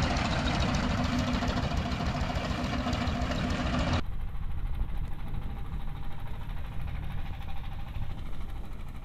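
Engine of a wooden river passenger boat running steadily, mixed with wind and water noise. About four seconds in the sound changes abruptly and turns duller.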